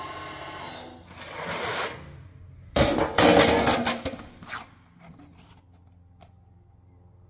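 Plate rolling machine's drive whining steadily for about the first second. Then thin sheet metal is handled on the rolls: a rising scrape, and from about three seconds in a louder crackling, rattling flex of the sheet that lasts over a second.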